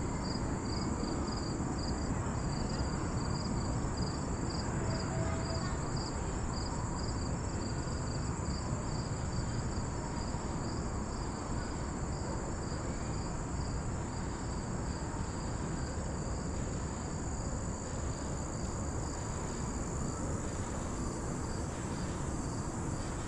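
Chorus of insects singing in the trees: a steady high trill with a chirp pulsing in an even rhythm, over a low steady rumble.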